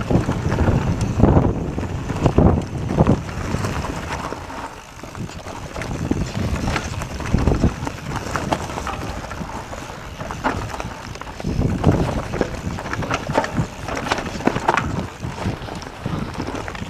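Wind buffeting the action camera's microphone over the rumble of knobby tyres on a rough dirt trail, with frequent irregular knocks and rattles from a Mondraker Summum downhill mountain bike as it rides over bumps.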